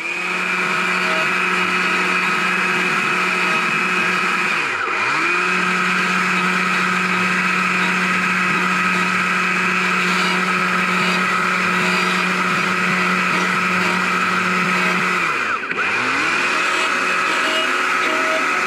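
Carving chainsaw running at high speed while the nose of its bar trims the edges of a small wooden heart. Twice, about five and about sixteen seconds in, its pitch drops briefly and climbs back.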